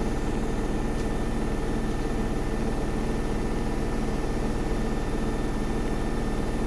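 Samsung WW80R421HFX front-loading washing machine running mid-cycle: a steady, even motor and drum hum with a faint high whine, unchanging throughout.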